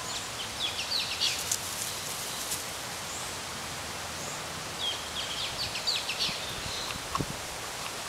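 A chick peeping in quick runs of short, high, falling notes, in two spells a few seconds apart, over a steady outdoor hiss.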